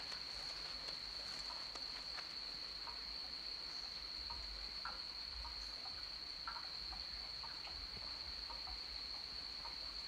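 Night forest ambience: an insect calling in one steady high note, with soft scattered rustles and ticks of a grey fox moving through dry leaf litter.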